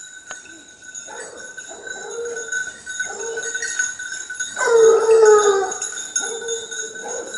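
Boar-hunting scent hounds (griffons and gascons) giving tongue on the trail, a run of short baying calls with one louder, longer, falling bay about halfway through. A steady high ringing runs underneath.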